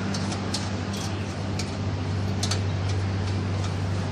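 A few irregular sharp metallic clicks of a spanner working a nut on the front wheel of a Royal Enfield Classic 350 as it is tightened, over a steady low hum.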